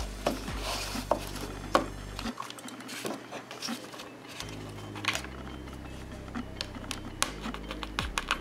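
Scattered light clicks and taps of fingers and pins handling a pinned longhorn beetle on a foam mounting block while its legs are set.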